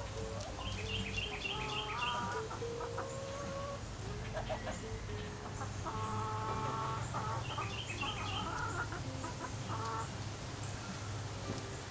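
Backyard hens clucking and calling, some calls drawn out for about a second. A wild songbird gives short rapid bursts of high chirps about a second in and again about 7 s in.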